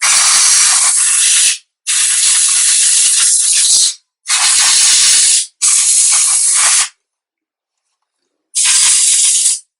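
Can of compressed-air duster spraying in five bursts of a second or two each, with a longer pause before the last, blowing built-up dust out of a PS4's fan.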